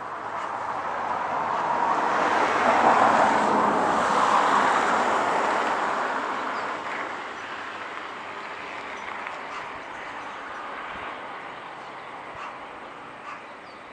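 A vehicle passing by: a rushing noise that swells over about three seconds and then fades away over the next few.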